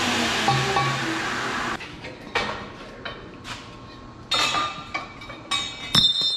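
A loud, steady noise cuts off suddenly nearly two seconds in. A run of sharp metal clinks and knocks follows, some ringing briefly, the loudest just before the end: metal parts and tools being handled and set down.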